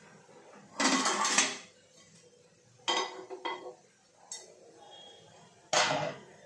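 Kitchen dishes and utensils clattering, in three bursts: a long one about a second in, a shorter one around three seconds, and another near the end.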